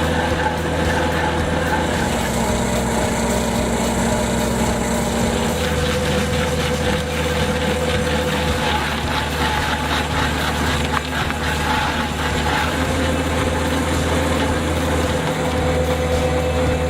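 A machine's engine running steadily, its hum shifting in pitch slightly a few times.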